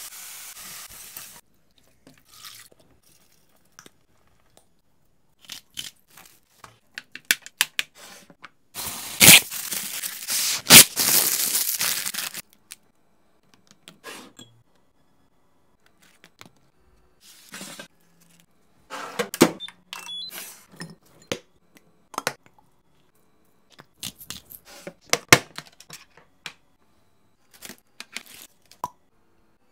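Kitchen food-prep handling sounds: a pan sizzle that stops about a second in, then scattered sharp clicks and knocks, with a loud stretch of noisy rustling from about nine to twelve seconds in.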